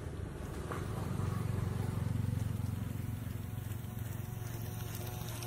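Small 100 rpm dual-shaft geared DC motor turning a foam boat's paddle wheels: a steady low whirring hum.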